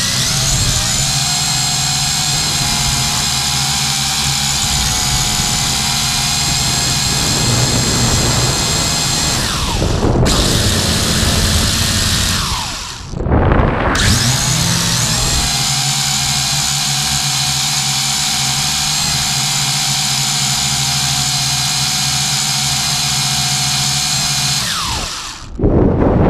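Small quadcopter drone's electric motors and propellers whining steadily, heard from the drone's own camera. About twelve seconds in, the whine falls away and briefly drops out, then spins back up; near the end it falls in pitch and cuts out, followed by a sudden rush of wind noise as the drone tumbles.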